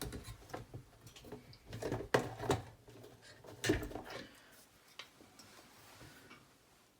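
Metal knocks and rattles of a heavy-duty steering-wheel lock's locking bar being handled, the loudest about two seconds in and another just before four seconds.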